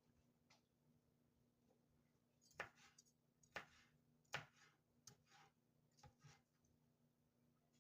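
Faint, irregular knife taps on a cutting board as red pepper strips are cut into smaller pieces: about six short knocks spread over a few seconds, under a low steady hum.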